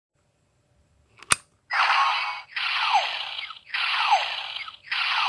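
A sharp click as a hero piece is loaded into a Legend Hero Changer DX toy, then the toy's electronic sound effect through its small speaker: a hissing burst with a falling tone, repeated about once a second, four times.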